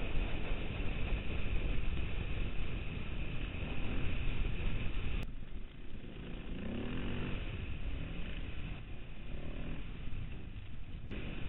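Off-road motorcycle engines running while riding a gravel track, heard from an on-board camera with heavy low rumble. About five seconds in the sound cuts abruptly to a quieter stretch in which the engine note rises and falls.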